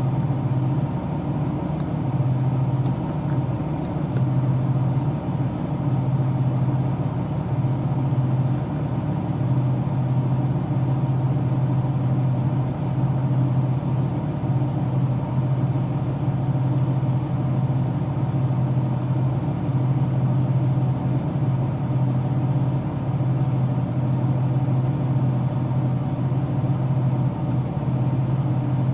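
Car engine hum heard from inside the cabin: a steady low drone that holds the same pitch and level throughout.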